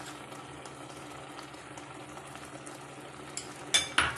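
Vermicelli simmering in a shallow layer of water in a non-stick kadai, a steady bubbling hiss as the water boils down. Two sharp clicks near the end, from a utensil touching the pan.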